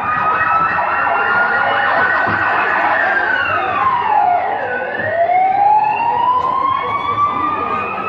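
Siren wailing, several overlapping tones slowly gliding up and down in pitch; about three seconds in one tone sweeps down steeply and then climbs again.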